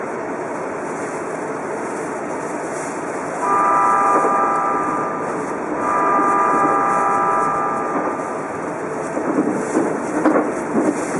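Train horn sounding two long blasts, each a chord of steady tones, starting about three seconds in, over the steady running noise of the Odakyu Romancecar VSE electric train. Near the end, an irregular burst of clatter.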